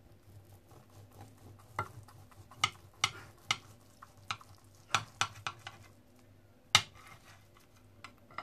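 Serrated plastic knife sawing through the crisp, crumb-coated crust of a baked meat and chicken roll in a ceramic baking dish: a scattered run of sharp crackles and clicks, the loudest about seven seconds in.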